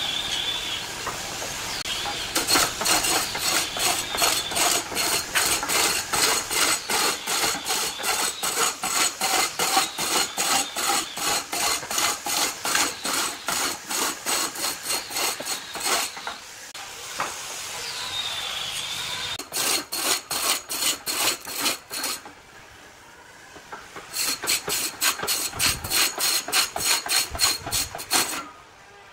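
Rhythmic scraping strokes of a hand tool working wood, about three strokes a second, in several runs broken by short pauses. A wavering high whine sounds near the start and again about two-thirds of the way through.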